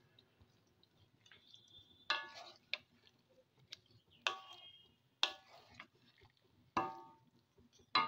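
Metal spoon clinking against a kadai while ginger and cumin paste is stirred into simmering curry: about seven sharp clinks, each ringing briefly, at uneven intervals.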